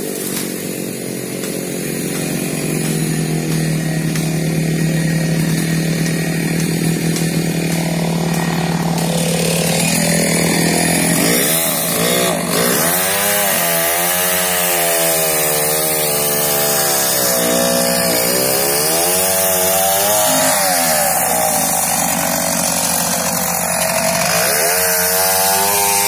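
Petrol chainsaw running loudly: at first at a steady engine speed, then from about ten seconds in its pitch rises and falls again and again as it bites into the wood of fallen trees.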